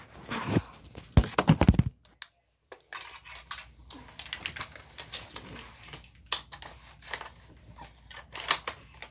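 Handling noise: a quick clatter of knocks and rustles as the phone is moved and set down, a brief silence, then light clicks and rustling as a BB rifle is handled.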